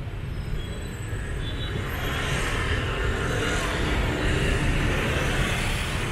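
City street traffic: the engines and tyres of passing motorbikes and cars, a steady rumble that grows louder about two seconds in.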